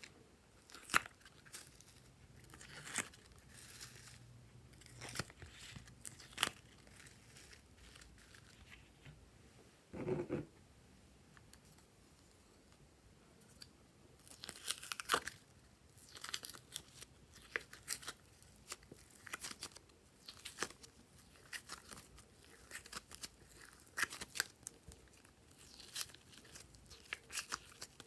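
Soft coloured clay being pushed and peeled out of a silicone mold and a clear plastic mold over a tray of slime: irregular sticky crackles, light clicks and tearing sounds, with a short muffled thump about ten seconds in.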